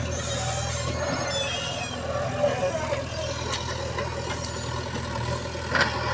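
JCB 3DX backhoe loader's diesel engine running steadily while the front bucket tips soil into a trolley. High squeaks come in the first second and a half, and a sharp knock sounds near the end.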